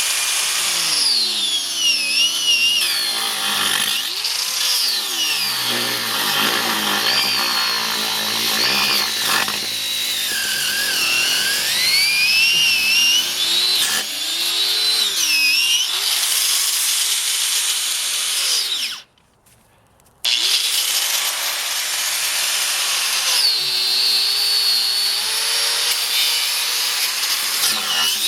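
Craftsman electric angle grinder with a cut-off wheel cutting through a rubber tire, its motor whine rising and falling as the wheel bogs and frees in the cut. The sound drops out for about a second roughly two-thirds of the way through, then the grinding resumes.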